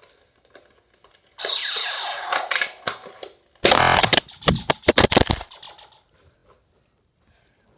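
A toy foam-ball blaster is readied with a noise lasting about two seconds, then fires with a loud burst about three and a half seconds in. A quick run of sharp knocks and clatter follows as the balls strike and the phone tips over.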